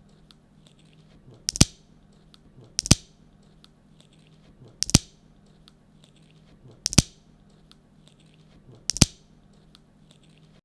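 Five sharp, crisp clicks, each a quick double snap, spaced about one to two seconds apart, with fainter small ticks between them over a low steady hum.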